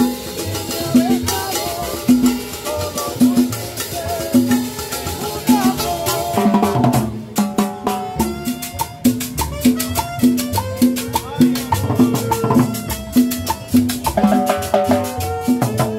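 Live cumbia band playing: congas and other hand drums over a steady repeating bass beat, with a melody line on top. The drumming gets busier about halfway through.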